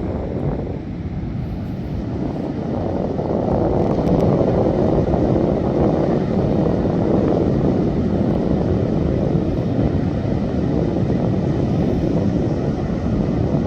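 Ocean surf breaking on a beach, a steady rumbling wash with wind on the microphone, swelling louder about three seconds in and then holding.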